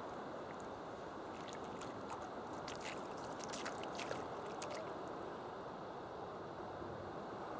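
Thin wave wash running over flat wet sand and around pieces of driftwood: a steady rushing noise with a flurry of small fizzing, trickling clicks from about a second and a half in to about halfway through.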